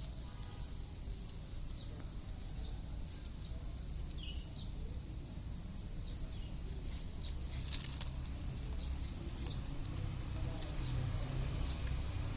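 Kitten chewing raw suckermouth catfish: scattered small wet clicks and crunches over a low rumble, with a thin steady high tone that stops about eight seconds in.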